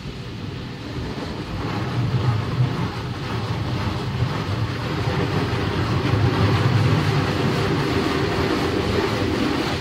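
Automatic car wash spraying water over the car, heard from inside the cabin: a steady rushing of water on the windshield and body with a low rumble, growing louder about two seconds in.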